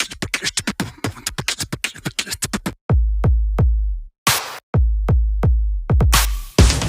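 Electronic background music: fast drum-machine beats, then deep bass notes with hits from about three seconds in.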